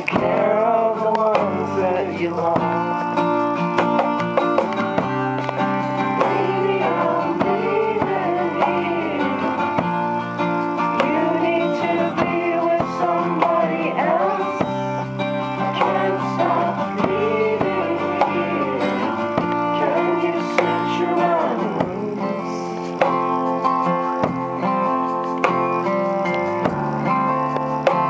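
Acoustic guitar strummed under a man's singing voice in a live unplugged performance. The singing stops about 22 seconds in while the guitar carries on.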